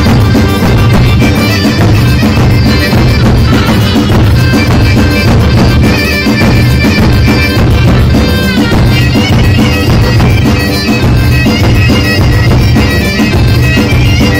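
Loud traditional folk dance music from a Korg Pa-series arranger keyboard played live through PA speakers: a lead melody over a steady rhythm with heavy bass.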